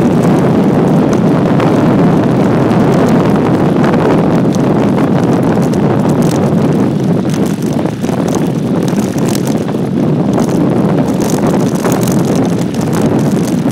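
Wind buffeting the microphone over the rumble of bike tyres rolling fast down a dirt and gravel track, with scattered clicks and rattles from the ride.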